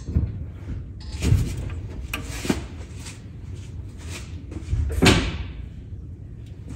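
A series of knocks and clunks, with one louder clunk about five seconds in.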